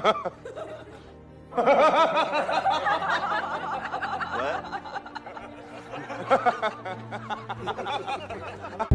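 Laughter over background music, beginning about a second and a half in and running on in wavering, high-pitched peals.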